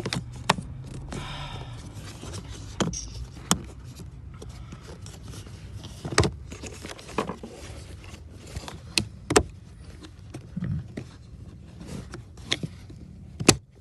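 Plastic clicks, knocks and scraping as a new cabin air filter is worked into its plastic housing, with about eight sharp clicks spread irregularly through.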